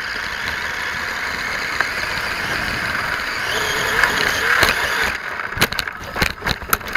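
Vaterra Twin Hammers radio-controlled rock racer driving over dirt and gravel, its electric motor and drivetrain whining steadily, louder for a moment as it climbs. About five and a half seconds in, a quick run of sharp knocks and clatters follows as the truck tips over and tumbles.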